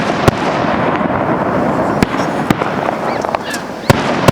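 Fireworks display: about four sharp bangs of bursting shells over a continuous crackle of firework effects.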